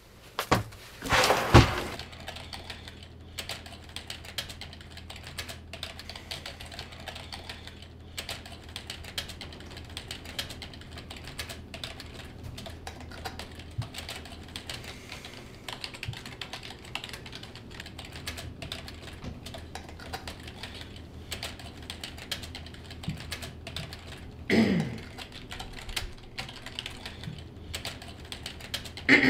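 Typing on a computer keyboard: a steady run of quick key clicks. A loud thump about a second and a half in, and a brief falling sound near the end.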